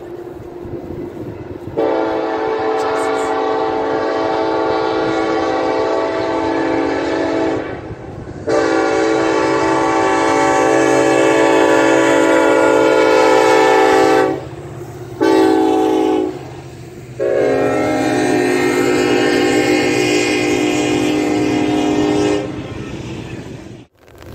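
Norfolk Southern SD70ACe locomotive's multi-chime air horn sounding the grade-crossing signal: two long blasts, a short one, then a final long blast. The low rumble of the approaching diesel locomotives runs underneath.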